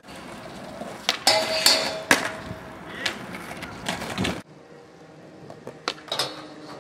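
Skateboard wheels rolling on concrete, broken by several sharp clacks of the board being popped and landing. The sound drops abruptly about two-thirds of the way through, then more clacks follow.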